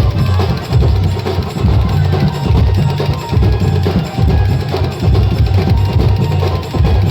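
Loud music driven by a heavy, repeating drum beat with clacking percussion over it.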